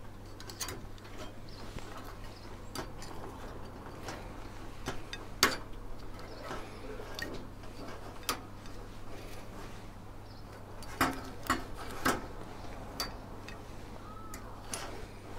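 Metal tongs clicking and clattering against a stainless wire cooking rack and a plate as cooked bacon pieces are lifted off, in scattered sharp clicks every second or two, the loudest about five seconds in, over a low steady hum.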